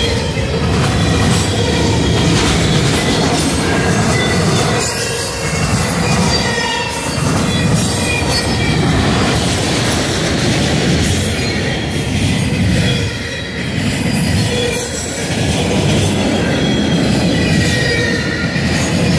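Freight train of autorack cars rolling past close by: a steady, loud rumble of steel wheels on rail, with thin high wheel squeal coming and going.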